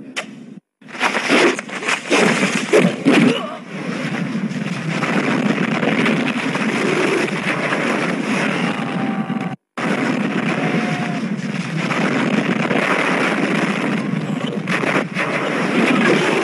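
Film fight-scene soundtrack: several loud punch impacts in the first few seconds, then a dense, continuous noise with voices mixed in. The sound drops out abruptly twice for an instant, at edits.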